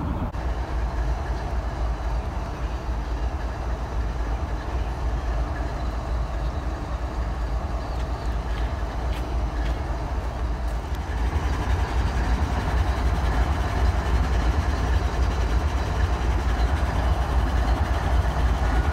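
Diesel-electric freight locomotives running with a steady low engine rumble, which grows somewhat louder about twelve seconds in.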